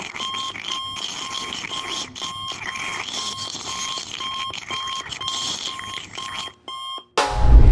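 Electronic alarm beeping, short two-pitch beeps about three times a second over a steady hiss, as a cartoon overcharge warning. Near the end the beeping stutters and stops, and a sudden loud bang with a deep boom follows.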